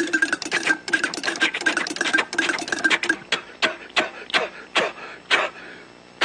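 Rapid mechanical clicking from a hand-worked sound-effects prop, with a faint steady pitch under it, slowing down to a few separate clicks and stopping a little after five seconds in.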